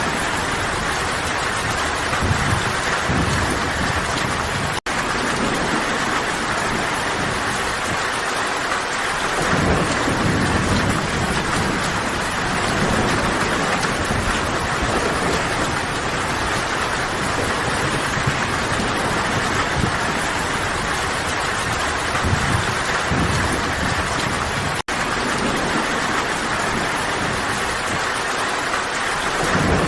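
Steady, heavy rain falling in a forest, with low rumbling swelling now and then. The sound cuts out for an instant twice.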